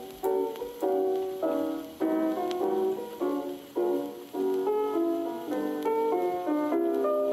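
Background instrumental music: a melody of single notes over chords, each note dying away after it is struck.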